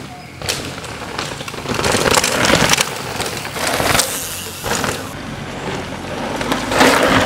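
Downhill mountain bikes passing at speed on a dirt and gravel track, tyres crunching over the ground and the bikes rattling. The sound swells several times as riders go by.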